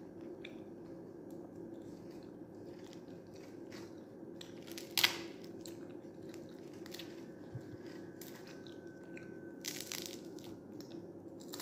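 Fried fish being eaten by hand: faint crunching and chewing, with a sharp crunch about five seconds in and a few crisp crackles near ten seconds, over a steady low hum.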